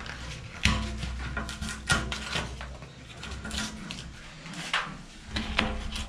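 Scattered knocks, clicks and scrapes from handling a tempered glass shower-door panel and the cardboard under it as the panel is lifted and moved, with a low steady hum starting under a second in.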